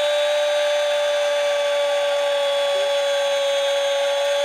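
A football commentator's long, held "goooool" cry, sustained on one steady high pitch.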